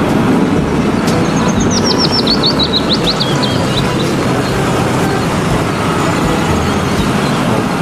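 Heavy Mercedes-Benz dump truck, loaded, with its diesel engine running as it drives past, a steady rumble mixed with road noise. From about a second in, a bird twitters a quick run of chirps that fall in pitch.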